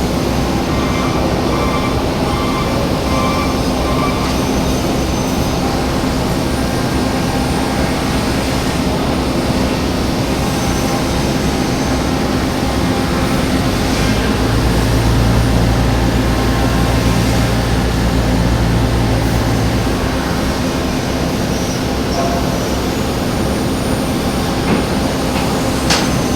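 A woodworking power tool running steadily with a constant hum. A deeper rumble is added from about fourteen to twenty seconds in.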